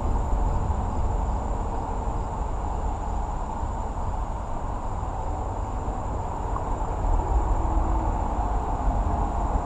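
Steady wash of distant interstate traffic noise, a constant low rumble and hiss with no separate events.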